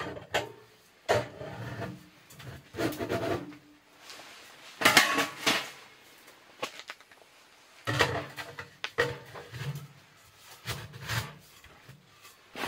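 Metal stovepipe sections of a tent wood stove being slid and fitted together: bursts of metallic scraping and clanking, about five times, with quieter gaps between.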